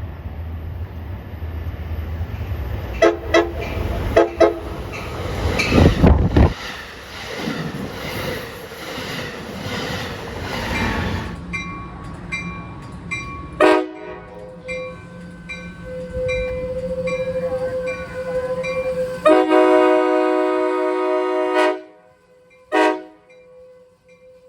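Amtrak Surfliner cab car's air horn sounding several short blasts, then one long blast of about two and a half seconds and a final short toot. The train runs past with a loud rushing rumble in the first half. A bell dings steadily through the second half.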